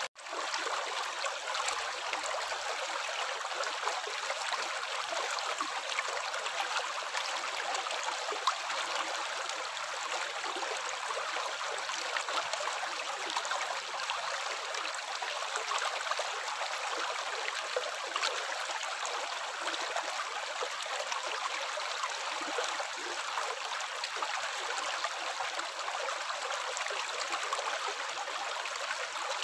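Running water splashing in a steady, even flow, with fine droplet spatter throughout. It cuts out for an instant right at the start.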